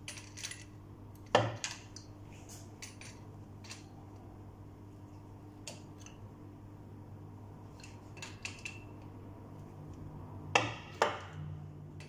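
Steel adjustable wrench clinking and clicking against a chrome angle valve as it is set on the valve and turned to screw it into the wall fitting. The sharp metallic clicks are scattered, with one loud click about a second and a half in and two more close together near the end.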